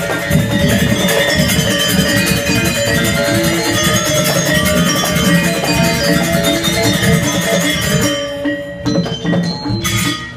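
Balinese gamelan ensemble playing: bronze-keyed metallophones struck in quick interlocking patterns over two kendang barrel drums. About eight seconds in the bright upper sound thins out and the music briefly drops in level near the end.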